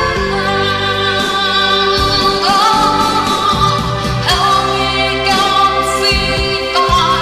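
Music: a slow pop backing track, with a voice singing long held notes that glide in pitch.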